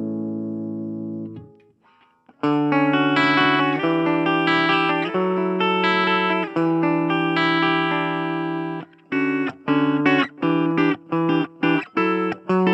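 Electric guitar (Gibson Les Paul Standard) played clean through a Blackstar Fly 3 mini amp, likely with its ISF tone control at the centre setting. A chord rings out and fades, and after a short pause sustained strummed chords ring for several seconds. Near the end the playing changes to short, chopped chords about twice a second.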